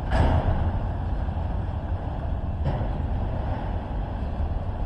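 A vehicle's steady low rumble, with two short, sharp bursts of noise: one at the very start and one about halfway through.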